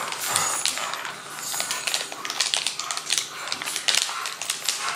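Small clear plastic bag crinkling and crackling as it is handled and squeezed in the hands, with many irregular sharp crackles.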